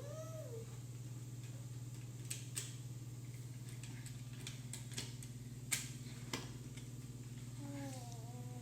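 Scattered sharp clicks and knocks of plastic toy trains being handled, over a steady low hum, with a brief vocal sound at the start and another near the end.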